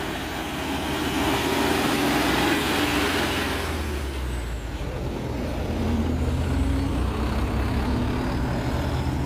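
Diesel truck engine running as a light truck passes close by, its engine and tyre noise loudest in the first few seconds, then settling to a steady drone as it moves on.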